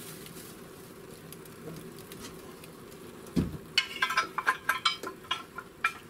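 Lit gas log burner in a fireplace insert hissing steadily. About three and a half seconds in comes a dull thud, then a quick run of metallic clinks and clatter as metal parts are handled in the firebox.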